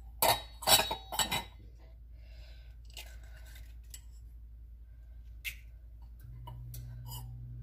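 Egg being opened and separated over a stainless-steel bowl: eggshell and a small yolk separator clink against the metal, three sharp clicks close together early, then a few lighter taps. A low steady hum comes in near the end.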